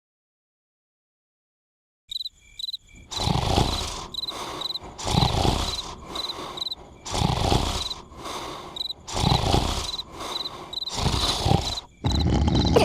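Person snoring in a steady rhythm, one snore about every two seconds, with crickets chirping between the snores. It starts after about two seconds of silence.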